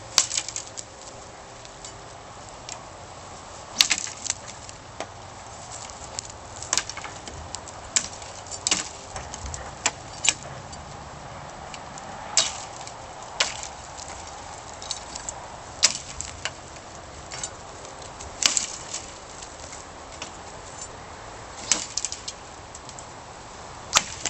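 A 9260 spring-steel katana chopping through tree limbs: about a dozen sharp whacks at irregular intervals, a few coming in quick pairs.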